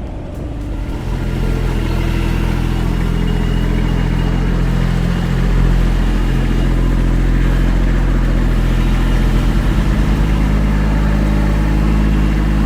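Heavy machinery's engine running steadily under load, growing louder about a second in.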